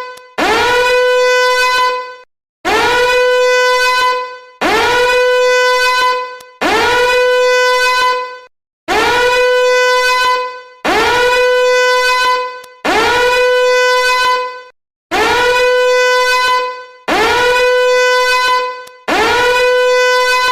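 Danger alarm horn sounding in repeated blasts, about one every two seconds. Each blast is a harsh, buzzy tone that swoops up quickly at the start, holds one steady pitch for under two seconds, then cuts off.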